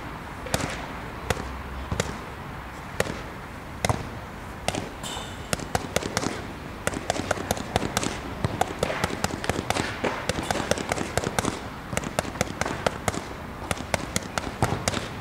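Boxing gloves slapping into focus mitts. Single punches land about once a second at first, then quick combinations come in fast runs of sharp slaps from about halfway through.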